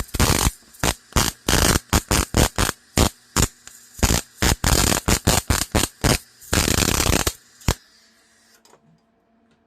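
Electric arc welding on a mower-deck bracket: the arc is struck in many short bursts, a few of them longer, and stops about eight seconds in.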